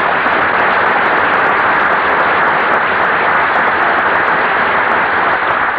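Studio audience applauding steadily, easing off slightly near the end, heard through the narrow, muffled sound of an early-1950s radio broadcast recording.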